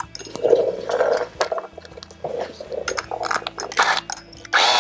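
Cordless ratchet driving in the bolts of a billet aluminium pulley, run in a string of short bursts with brief pauses between them.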